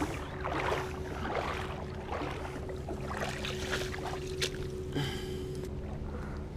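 Shallow water at the shoreline lapping with several soft small splashes as a small sea bass is handled in the shallows, over a faint steady hum.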